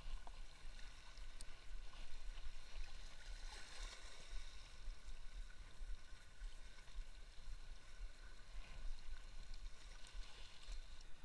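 Faint water lapping, with wind rumbling on the microphone under a steady hiss.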